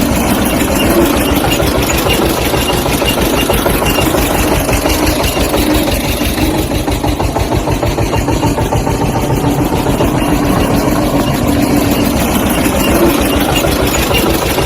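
Tractor engine idling steadily with a fast, even chug.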